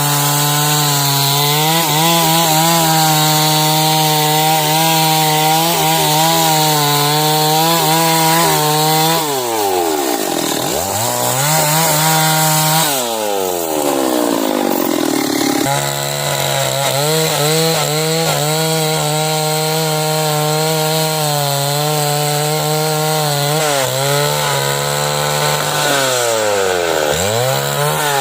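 Stihl chainsaw running at full throttle while ripping a log lengthwise into timber. The engine speed drops sharply and climbs back around ten seconds in, and again near the end.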